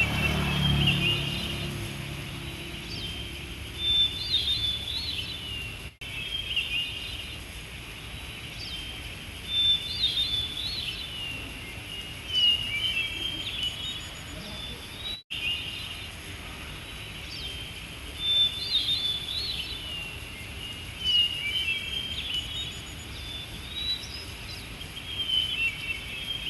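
A songbird repeating a short chirpy song phrase every few seconds, over a steady background hiss.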